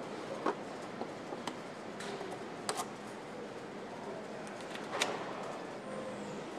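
Steady motorcycle assembly-hall background noise with a few sharp clicks and knocks, the loudest about five seconds in.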